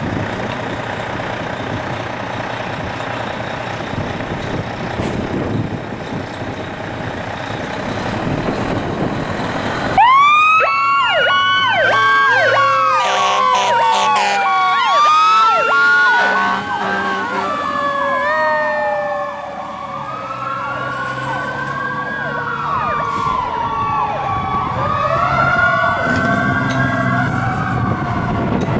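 Fire engine pulling out on an emergency call: its engine runs for about ten seconds, then its sirens come on suddenly. A wailing siren sweeps up and down in pitch over a steady, pulsing higher tone, with a few short low horn blasts.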